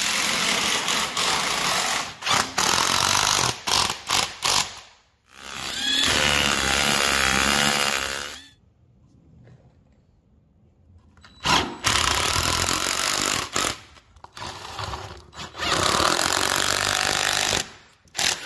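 Cordless drill/driver working into a concrete floor in repeated bursts, some short and some a few seconds long, with a pause of about three seconds midway. It is driving screws through metal strapping into the concrete.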